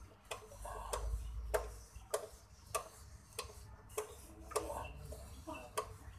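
Sharp clicks at a steady rhythm, a little under two a second, as an M5 tap held in a drill press chuck is turned by hand, cutting threads into an aluminium reel frame.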